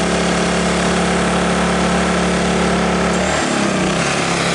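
Ryobi RYI2200 inverter generator's engine running steadily, then about three seconds in its pitch drops as the engine slows to a lower speed and runs on.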